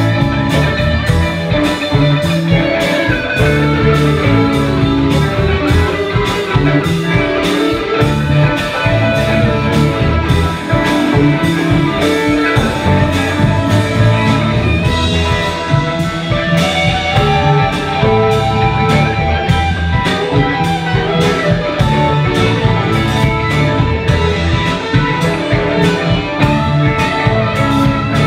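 A live band playing electric guitar, fiddle, bass guitar, drums and keyboard, with a steady drum beat under sustained melodic lines.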